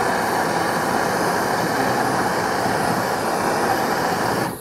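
Steady rushing hiss of gas flowing to a raku kiln's pilot burner as it is lit, dropping off sharply near the end.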